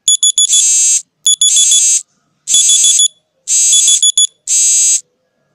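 Electronic alarm sounding five times, about once a second: loud, high-pitched bursts, each with rapid beeping inside.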